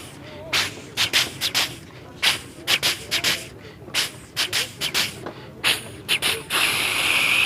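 A man's mouth imitation of a train pulling out of a station: a run of short breathy chuffs, about two a second, then a long steady hiss near the end.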